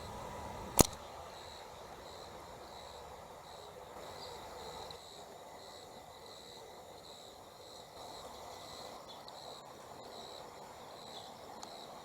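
Insects chirping in a steady, evenly pulsing high trill over faint outdoor background noise, with one sharp click about a second in.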